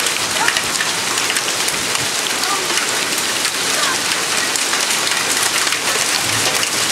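Heavy hailstorm: hailstones and rain pelting down on roofs in a dense, steady clatter of countless fine ticks, with no let-up.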